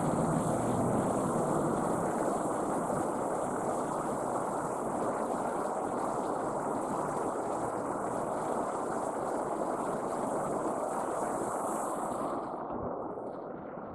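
Mountain river rushing steadily over rocks and boulders. A thin, high steady hiss sits above it and cuts off near the end.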